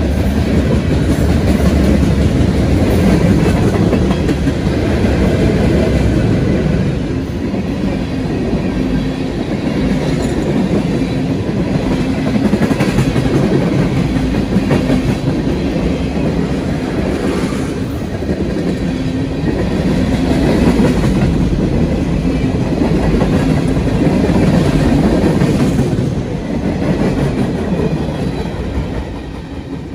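CSX mixed freight train's cars rolling past at trackside, steel wheels running over the rails in a steady rumble that falls away near the end as the last cars go by.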